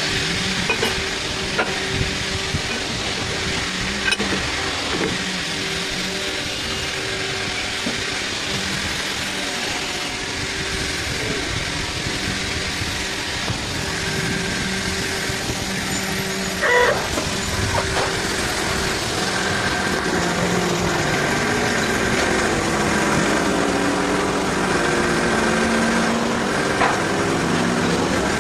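CNC lathe running a face-grooving cut: a steady machine hum and whine under the hiss of flood coolant spraying onto the spinning workpiece, with a brief sharp knock a little past halfway.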